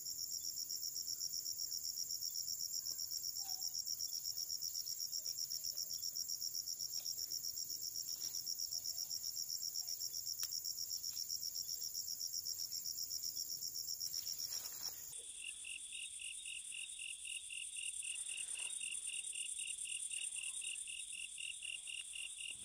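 Insects chirping: a rapid, high pulsed trill that switches abruptly about fifteen seconds in to a lower-pitched chirping at about three pulses a second.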